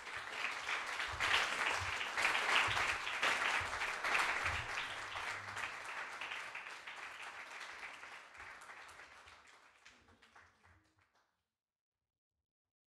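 Congregation applauding, loudest in the first few seconds, then dying away and stopping near the end.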